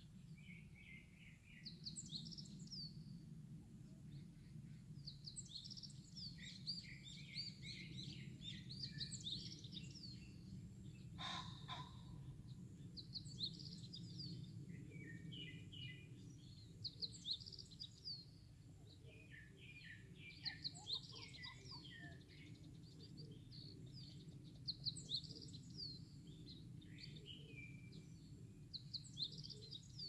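Several songbirds singing, with many quick high chirps and trills overlapping, over a steady low background noise. One short, harsher call stands out about eleven seconds in.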